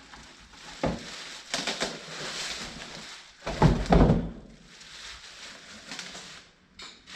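Cardboard box and packaging being handled: rustling, with a sharp knock about a second in and a heavier thump about four seconds in.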